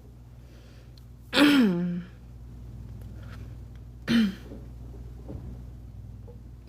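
Two short throaty noises from a woman: a loud one about a second and a half in, its pitch dropping, then a shorter, weaker one about four seconds in.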